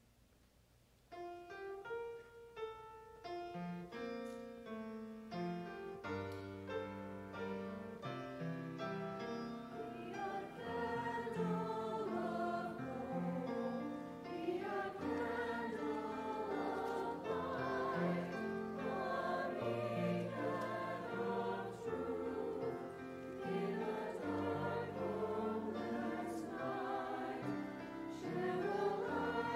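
Church choir singing with piano accompaniment: the piano starts an introduction about a second in, and the choir's voices come in around ten seconds in.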